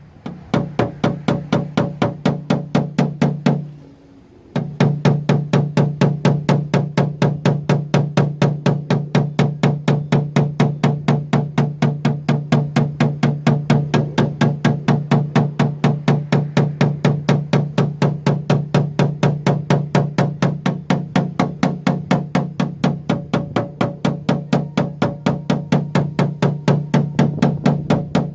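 Rapid, evenly paced tapping of a paintless-dent-repair hammer and knockdown tool on a car door panel, several light taps a second. The tapping stops briefly about four seconds in, then resumes at the same pace.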